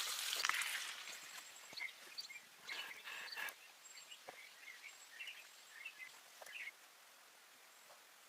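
A hissing, crackling noise fades out in the first second, then faint bird chirps and a few soft clicks follow for most of the rest.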